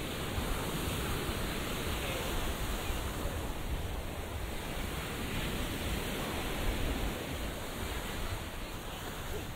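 Sea surf washing onto a beach, a steady rush of noise, with wind buffeting the microphone.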